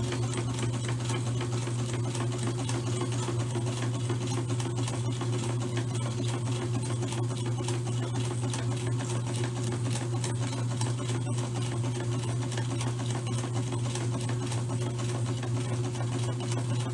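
Electric sewing machine running steadily as it stitches through fabric: a constant low hum of the motor with the needle mechanism working underneath.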